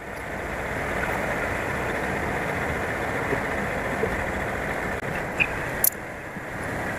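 A vehicle driving along: steady engine and road noise that swells over the first second, with one sharp click near six seconds in.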